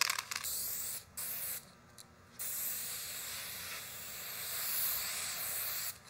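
Television static: a hissing white-noise rush that cuts out briefly just after a second in, drops much quieter for most of a second, then comes back steady.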